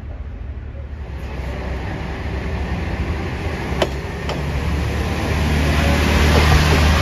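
Diesel railcar moving alongside the platform: a steady low engine drone and rolling noise that grow louder, with two sharp clicks about four seconds in.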